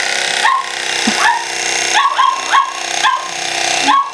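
Hamilton Beach electric knife running with a steady motor whine as it saws through a beef roast, while a dog barks over and over at it, about two or three barks a second.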